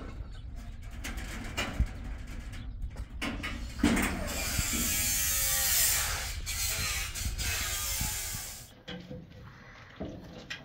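Clicks and knocks from work on a metal-sheet pavilion roof, then a power tool running loudly for about four seconds, starting a little before halfway and stopping suddenly. A few light clinks follow near the end.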